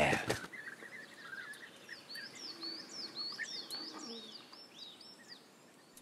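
European bee-eaters calling: a faint run of short, quick chirps, about three a second, dying away near the end.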